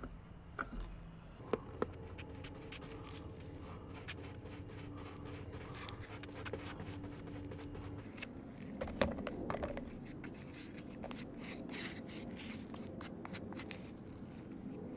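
Quiet scraping of a stick stirring two-part epoxy in a plastic mixing cup, with a faint steady hum. From about eight seconds in, soft scratchy brush strokes as epoxy is painted onto plywood backing plates.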